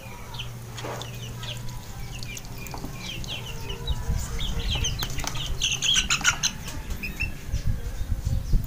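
A chicken flapping its wings and struggling while being held, the flapping heavier from about four seconds in, with many short high bird chirps throughout.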